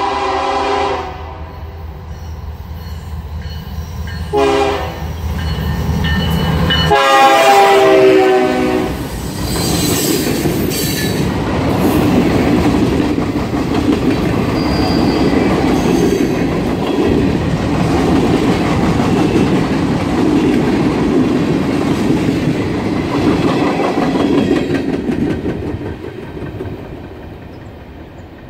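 Diesel freight locomotive's air horn sounding in the long–short–long pattern for a grade crossing: a blast ending about a second in, a short toot, then a longer, loud blast as the locomotives reach the camera, over the low engine rumble. A long string of freight cars follows, rolling by with steady wheel rumble and clickety-clack over the rail joints, fading near the end as the train moves off.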